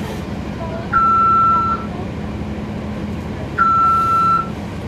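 Loud electronic warning beeps aboard a NABI 40-SFW transit bus. Each is one steady tone lasting just under a second with a slight drop in pitch as it starts: one about a second in, another near the four-second mark, and a third starting right at the end. Under them is the steady hum of the bus's Cummins ISL9 diesel engine.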